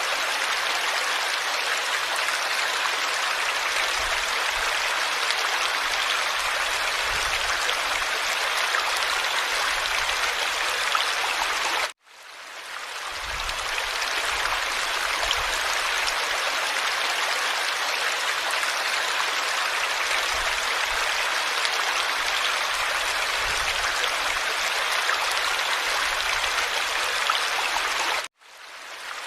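Steady rush of flowing water, like a stream, with no pitch to it. It cuts out abruptly about twelve seconds in and again near the end, and fades back in each time, as a looped water recording does.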